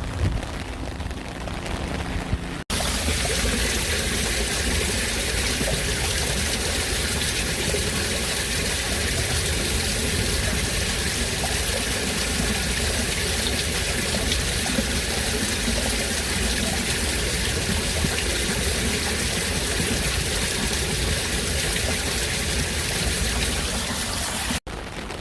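Heavy rain falling as a steady, dense hiss. A quieter stretch of rain switches to it abruptly about three seconds in, and it cuts off just before the end.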